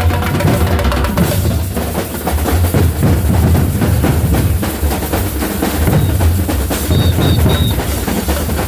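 Batucada samba percussion ensemble playing: deep bass drums beat under fast, dense snare-drum strokes, with a few short high tones near the end.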